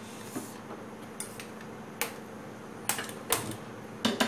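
Kitchen utensils and cookware clinking and knocking: about half a dozen sharp, separate clicks, the loudest about two seconds in, over a low steady background.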